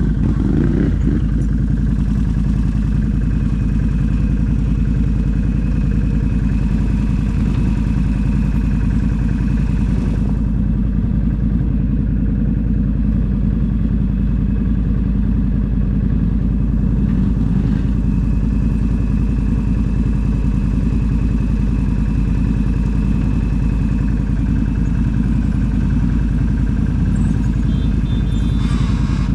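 ATV engine running at a steady pitch.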